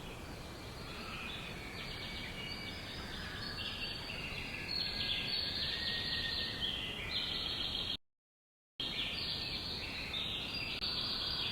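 Many birds chirping and calling at once, a dense overlapping chorus of short high notes over a steady background hiss. The sound cuts out completely for under a second about eight seconds in, then the chorus resumes.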